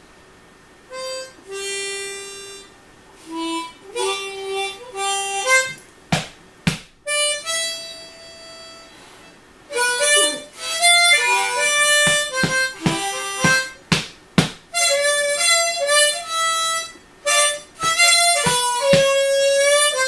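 Harmonica playing short bluesy phrases with brief gaps between them, starting about a second in and growing busier and louder in the second half.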